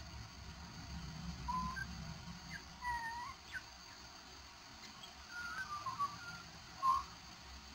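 Australian magpie singing softly: a scatter of short whistled notes and little rising and falling slurs, with one louder note near the end.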